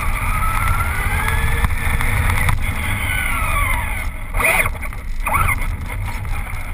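Wind buffeting the microphone, with the whine of a Traxxas Rustler VXL's brushless electric motor rising in pitch as the truck speeds up, then falling as it slows, over the first three seconds or so.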